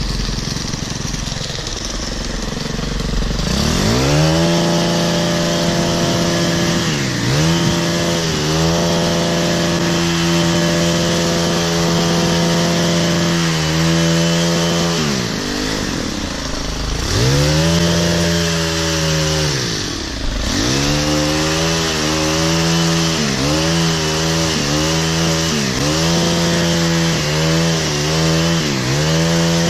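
Stihl KM 90 R KombiMotor's 4-MIX engine driving an articulating hedge trimmer's reciprocating blades through a hedge. It runs low for the first few seconds, then revs up to full throttle and holds there, easing off and coming back up several times. Near the end the throttle is blipped about once a second.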